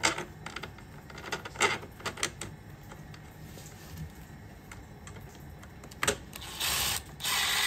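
A few light metallic clicks of a screw and hardware being handled, then near the end a Milwaukee cordless impact driver runs in two bursts, a short one and then a longer one, driving a screw into the armour plate.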